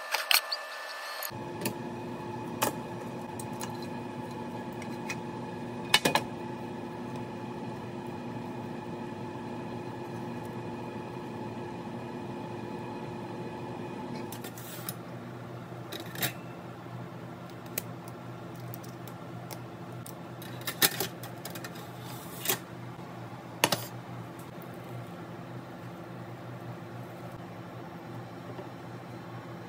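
Scattered clinks and clacks of cookware and utensils being handled, over a steady appliance hum; a sharper clack about six seconds in and several more in the second half.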